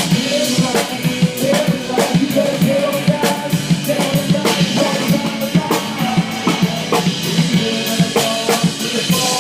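Live band music with a steady drum-kit beat of kick and snare under a wavering melodic line, with little deep bass.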